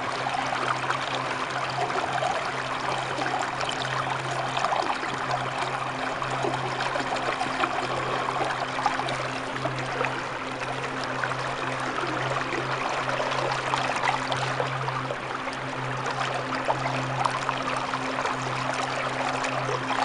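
Waterfall and churning river: a steady, dense rush of falling and splashing water, with a steady low hum underneath.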